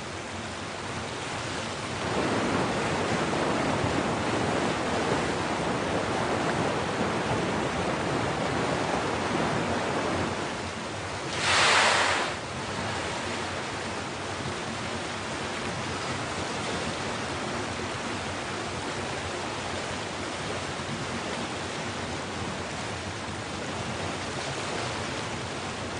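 Sea water rushing and washing steadily, stronger from about two seconds in, with one brief louder splash about halfway through.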